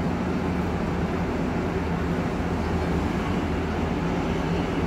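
Cabin noise inside a moving shuttle coach: the engine's steady low hum under a constant rumble of tyres on the road.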